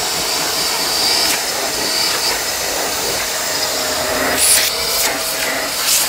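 Suction motor of a portable carpet spot cleaner running steadily while its small hand tool draws water up out of a soaked rug, with a couple of brief hissing surges near the end.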